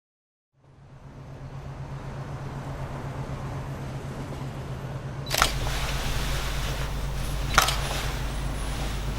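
A steady low hum with hiss fades in. About five seconds in a deeper rumble joins it with a sharp click, and a second sharp click follows about two seconds later.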